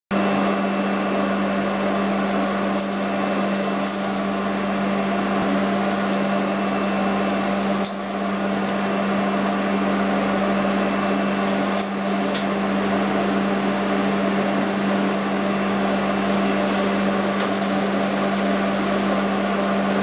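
Industrial vacuum cleaner running steadily while its hose picks up flour dust: a constant hum and rushing noise, with a faint high whine that dips and rises in pitch several times. A few faint clicks come through.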